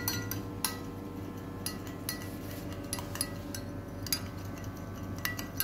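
A long-handled metal spoon stirs cocoa powder into hot water in a small glass measuring jug. It clinks against the glass at irregular intervals, roughly one or two clinks a second.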